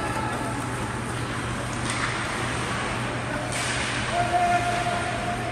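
Hockey arena ambience: spectators murmuring and calling out in the stands over a steady low hum. About four seconds in, a single held note starts and carries on.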